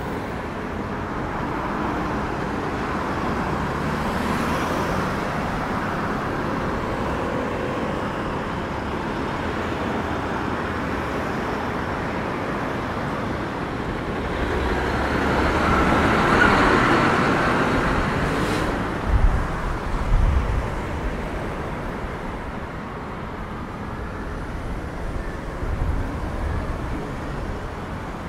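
Street traffic running steadily, with one vehicle passing close and louder around the middle, followed by a few short low thumps.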